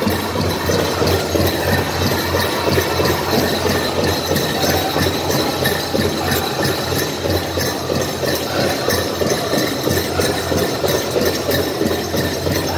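Powwow drum beaten in a steady, even rhythm for the dancing, with the drum group's singing over it.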